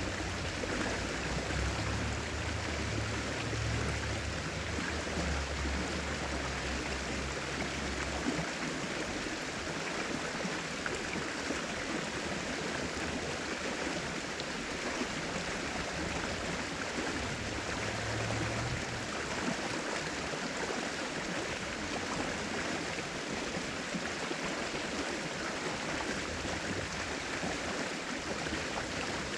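Flowing river water rushing steadily, with a low rumble underneath for the first eight seconds or so and again briefly later.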